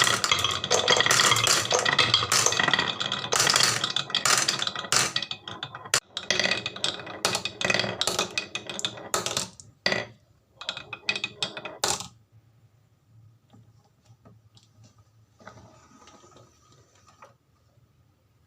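Marbles rolling and clattering down a wooden marble run, a dense stream of clicks and knocks that thins out and stops about twelve seconds in, followed by only faint noises.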